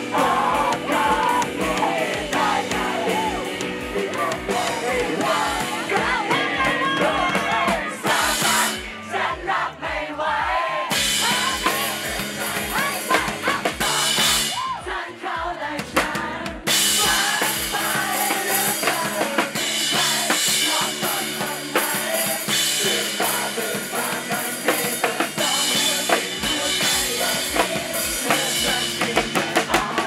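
Band music with a drum kit and singing, played with a steady beat; the high end thins out briefly twice, around nine and fifteen seconds in.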